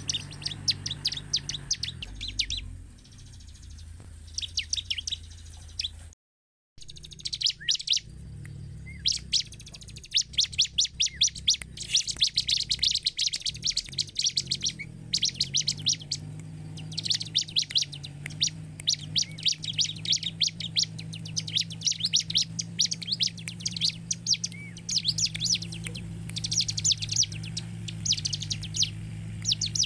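Bar-winged prinia (ciblek) singing: fast trills of high, sharp chirping notes in bursts of a second or two, with short pauses between. The sound cuts out briefly about six seconds in.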